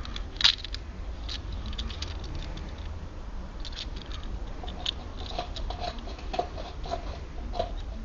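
Lock picks working inside a Dangerfield four-lever padlock: irregular small metallic clicks and scrapes, with one sharper click about half a second in.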